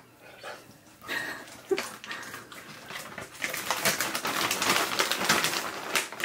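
Huskies making short whining vocal sounds while begging for a biscuit, followed in the second half by a dense run of crackling, clicking noises.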